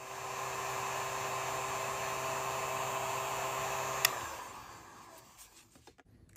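Heat gun blowing steadily with a motor hum, switched off with a sharp click about four seconds in, its fan then winding down with a falling tone.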